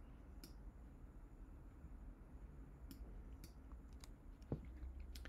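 Faint, separate computer mouse clicks, about half a dozen spread out, over a low steady hum of room tone.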